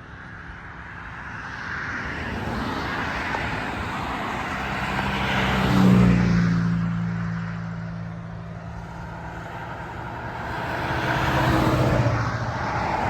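Road vehicles passing by: a vehicle comes up loudest about six seconds in with a slight drop in engine pitch as it passes, its engine hum trailing off, then another swell of traffic near the end.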